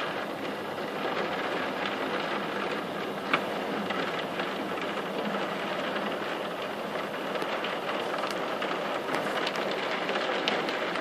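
Heavy downpour with hail: a steady rush of rain with scattered sharp ticks of hailstones striking, one sharper knock about three seconds in.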